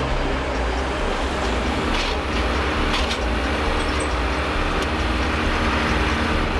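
Steady low rumble of construction machinery, with a couple of faint clanks about two and three seconds in.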